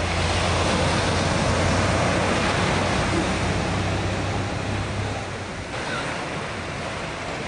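Small ocean waves breaking and washing up the beach in a steady wash of surf, with a low steady hum under it that stops about five and a half seconds in.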